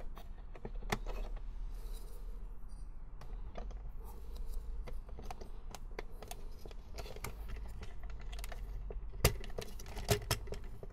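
Hard plastic parts clicking and knocking as a black body-kit piece is pressed and worked into the front of an opened Nerf SlingFire blaster shell, with a few sharper clacks near the end.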